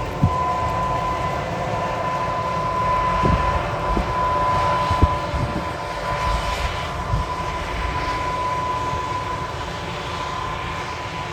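Big four-wheel-drive tractor's diesel engine running steadily under load while pulling an air drill, with a steady high whine and a few low knocks.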